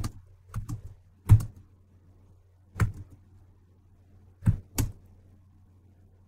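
Computer keyboard being typed on: a handful of separate, unevenly spaced keystrokes with pauses of up to a second and a half between them, the loudest about a second in, over a faint steady low hum.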